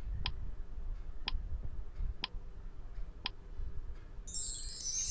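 Countdown timer sound effect: four sharp ticks about a second apart, followed about four seconds in by a bright shimmering chime sweep as the answer is revealed.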